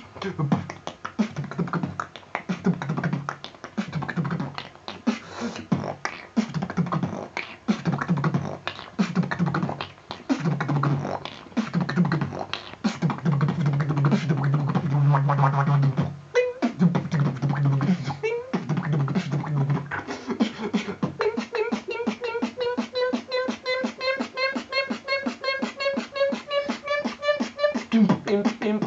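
Freestyle vocal beatboxing: fast rhythmic clicks and snares over low hummed bass notes. About three-quarters of the way through, the beat gives way to a buzzing pitched line that rises and then holds, pulsing rapidly.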